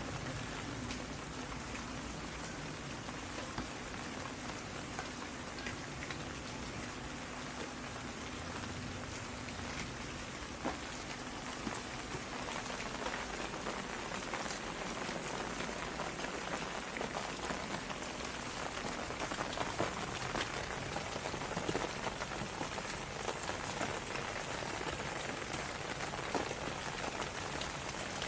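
Steady rain falling on a surface, a dense hiss with many small drop ticks, some heavier drops standing out in the second half.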